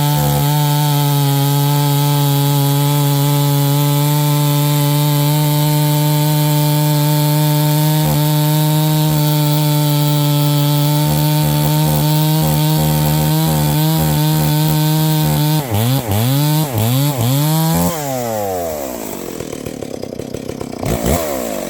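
A 72cc-class two-stroke chainsaw held at steady full throttle cutting through wood for about fifteen seconds. It is then revved up and down several times and let drop back to idle.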